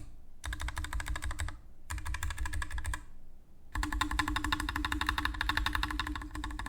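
Fast typing on a Keychron S1 low-profile mechanical keyboard with Gateron Low Profile Brown tactile switches. It comes in three runs of rapid keystrokes with short pauses between, the last and longest lasting about three seconds.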